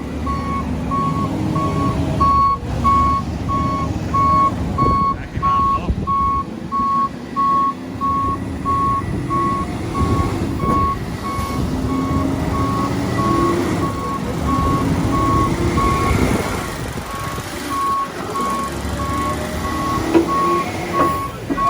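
Truck reversing alarm beeping steadily, about twice a second, over the rumble of the truck's engine as it backs up a steep hill.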